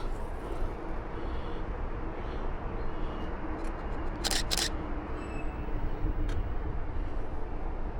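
DSLR camera shutter firing twice in quick succession about four seconds in, two sharp mechanical clicks, over steady outdoor background noise.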